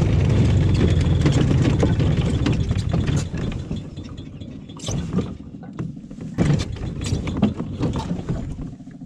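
Small 125cc mini jeep engine running as the jeep drives over rough trail. The engine is loudest for the first few seconds, then quieter, with several sharp knocks and rattles from the body over rocks.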